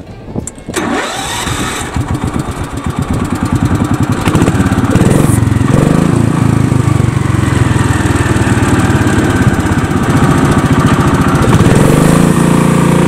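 Jacobsen three-wheeled utility cart's small engine starting up. It fires about two seconds in, its beats quicken over the next few seconds, and it settles into a steady run.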